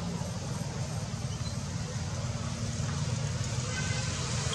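Steady low engine hum with no clear rises or falls.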